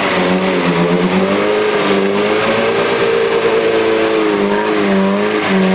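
Off-road 4x4's engine held at high revs, loud and steady, its pitch wavering slightly up and down.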